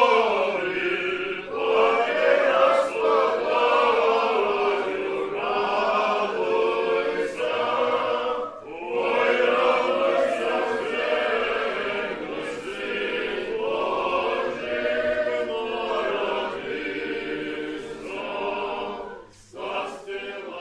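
Eastern Orthodox church congregation and clergy singing a liturgical chant together, men's voices to the fore. The singing breaks off briefly about eight seconds in and again near the end.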